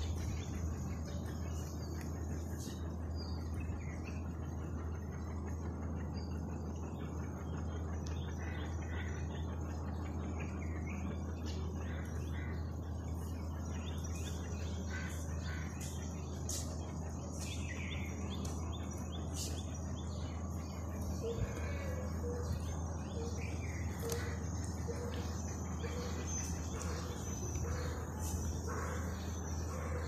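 Birds chirping and calling over a steady, high cricket trill. Later on, a lower call repeats about once a second, and a low steady hum runs underneath.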